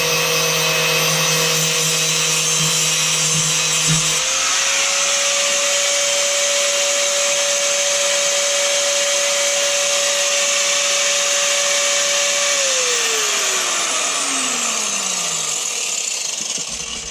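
Angle grinder cutting through a drain pipe, running at a steady high whine with a harsh cutting hiss. About twelve seconds in the motor is released and its whine falls away as it spins down.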